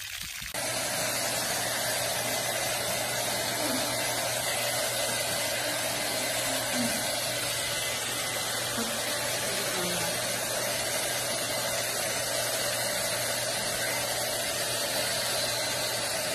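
Hand-held hair dryer running steadily on a golden retriever puppy's fur: an even rush of air over a steady motor hum, starting about half a second in after a moment of water pouring from a tap.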